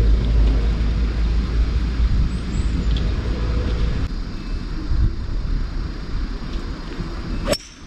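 Steady low rumble of wind on the microphone. Near the end comes a single sharp crack as a golf club strikes the ball on a full shot.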